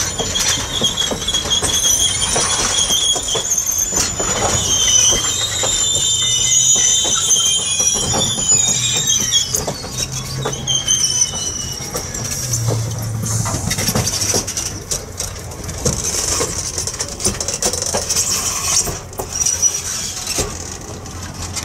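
Passenger train cars rolling past, their steel wheels squealing against the rails with a high, wavering screech for roughly the first ten seconds, over a steady rumble of wheels on track that carries on after the squeal dies away.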